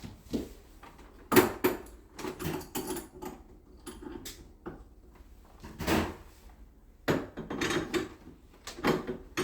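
Irregular knocks and clatter of hard objects being handled, the loudest a sharp knock about one and a half seconds in, with another cluster of knocks from about six seconds on.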